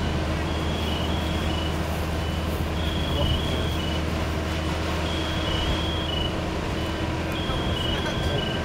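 Fire apparatus engine running at the scene with a steady low drone. Over it, a high two-tone electronic beep pattern repeats about every two seconds.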